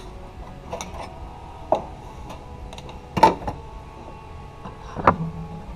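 A few separate metallic clicks and clinks of hand tools and brake-line parts being handled, the loudest about three seconds in.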